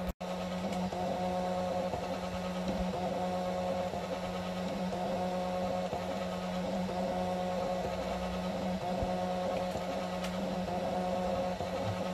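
Small desktop diode laser engraver running as it engraves a wooden keyring: a steady hum and whir from its fan and stepper motors. The sound drops out for an instant just after the start.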